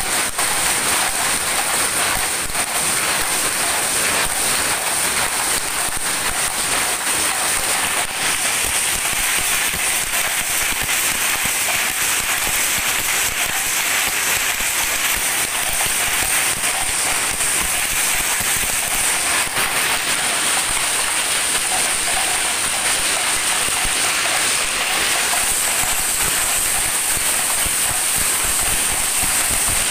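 Many power looms running together in a weaving shed: a loud, steady, dense clatter of rapid clicks, with a high hiss throughout.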